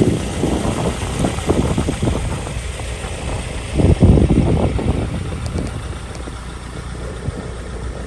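Wind buffeting the microphone: a gusty low rumble that surges and fades, with its strongest gust about halfway through.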